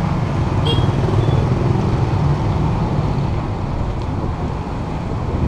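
City street traffic: a steady low rumble of motor vehicles and motorbikes close by, heard from a bicycle riding through it.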